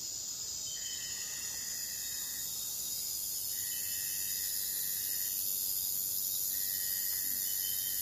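Steady high-pitched chorus of insects such as cicadas or crickets in woodland. A lower drawn-out note, about a second and a half long, sounds three times over it at roughly three-second intervals.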